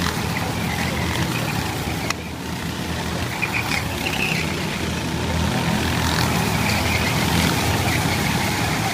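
Engines of a field of rental racing karts running around the track, a mix of buzzing engines with high whines that rise and fall. They grow louder about six seconds in as a close group of karts passes by.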